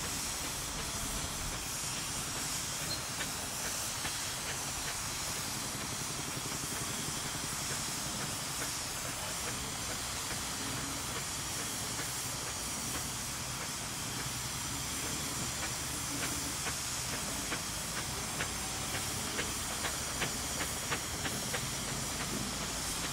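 Steam traction engines working under a heavy haul, with a steady hiss of steam. About two-thirds of the way through, a run of short, sharp, regular beats sets in at roughly two a second.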